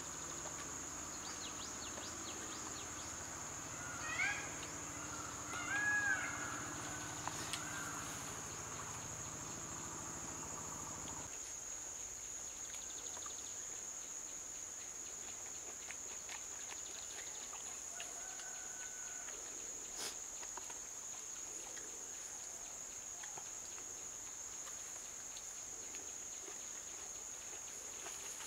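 Steady high-pitched insect drone in rural greenery, with a few short bird calls about four and six seconds in. A low background rumble stops abruptly about eleven seconds in.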